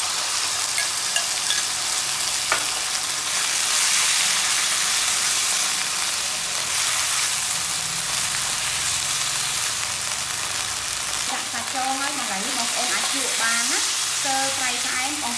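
Cubed beef and minced garlic frying in a hot nonstick wok: a loud, steady sizzle that starts as the meat goes into the pan. A few sharp clicks come in the first seconds, and a silicone spatula stirs and scrapes the meat through the frying.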